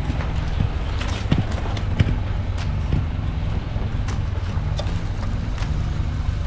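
Pajero engine running steadily at low crawling speed, with branches and brush scraping and snapping against the body every second or so.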